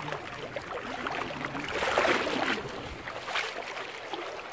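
Fast river current rushing and splashing, with a louder surge of water noise about two seconds in.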